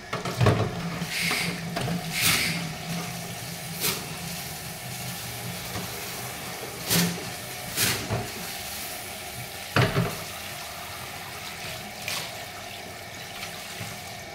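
Kitchen tap running onto a stone mortar in a stainless-steel sink as it is rinsed and scrubbed by hand, with several short sharp knocks along the way.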